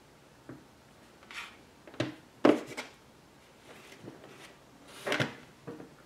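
Handling noise of hands working stranded copper wire ends with a small hand tool: a string of short rubs and clicks, the loudest about halfway through.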